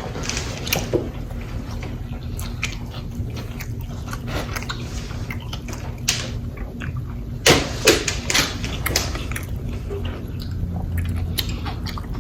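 Close-miked chewing and biting of a fried chicken sandwich dipped in spicy sauce: irregular mouth clicks and smacks, with a few louder bites about seven and a half to nine seconds in.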